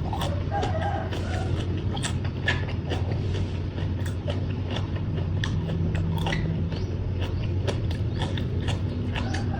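Close-up chewing and crunching of papaya salad and raw vegetables: irregular wet crunches and clicks, over a steady low hum.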